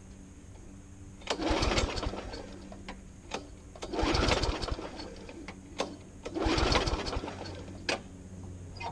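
Petrol lawnmower being pull-started with the choke back in its normal position: three pulls on the recoil starter cord, about two and a half seconds apart. Each pull gives about a second of the engine turning over, with sharp clicks between the pulls. The engine does not catch and run.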